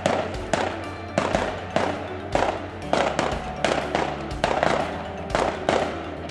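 Background music with a steady drum beat, just under two hits a second, over a sustained bass line that shifts note about halfway through.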